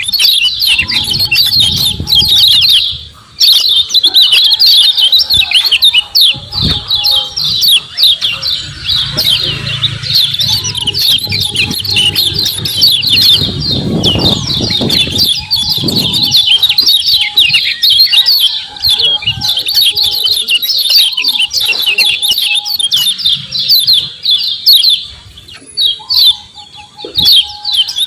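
Kecial kuning white-eyes giving a dense, rapid stream of high 'ciak ciak' chirps, with brief breaks about three seconds in and near the end. A low rumble sits under the chirping in the middle.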